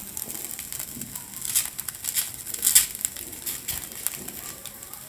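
Granulated sugar being sprinkled onto dry flattened rice (poha) in a hot nonstick pan with ghee. It makes a light, irregular pattering and crackling, with a few louder ticks in the middle.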